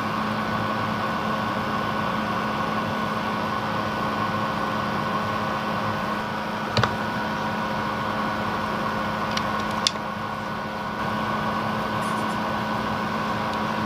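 A steady hum with hiss, broken by a few short sharp clicks about seven and ten seconds in.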